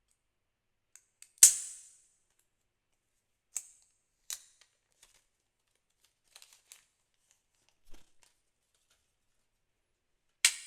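A plastic power adapter and its packaging being handled: a handful of short clicks and crinkles, the loudest about a second and a half in and another near the end.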